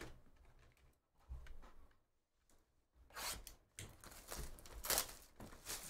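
Plastic shrink wrap on a cardboard trading-card hobby box being torn and peeled off, crinkling with a few sharp rips, starting about three seconds in.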